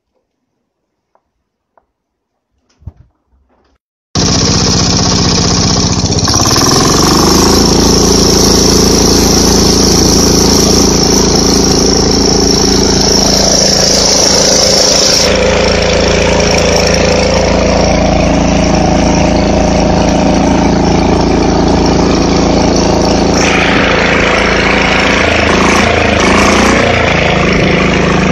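A few faint clicks and a knock, then about four seconds in a 10 hp Launtop single-cylinder diesel engine comes in abruptly at full loudness, running on canola oil thinned with a little gasoline. Its pitch rises soon after and it then runs steadily as it drives the garden tractor along.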